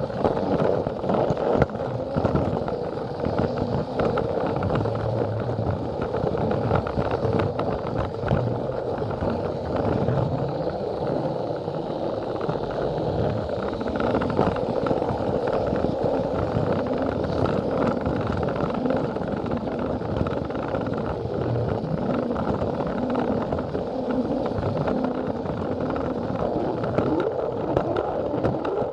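Battery-powered Plarail toy train running steadily on plastic track: a constant whir of its small gear motor, with many small clicks and rattles from the wheels on the rails.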